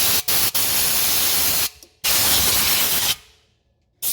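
Air blower blasting into the ABS wheel-speed sensor hole to clear out dirt. It is a loud hiss in bursts: a few quick on-off pulses at the start, a long blast, then another that tails off and stops about three seconds in.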